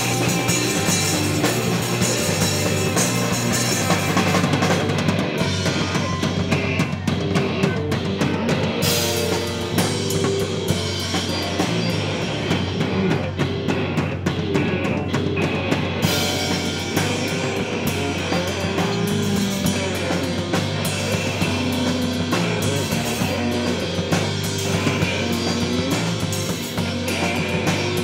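Live hardcore punk band playing: two electric guitars, bass guitar and a drum kit, without a break.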